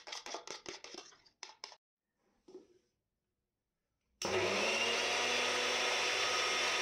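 Soaked melon seeds scraped with a spoon out of a plastic box into a steel grinder jar, a quick run of light clicks. After a short pause an electric mixer grinder starts about four seconds in and runs steadily at full speed, grinding the seeds and cashews into a wet paste.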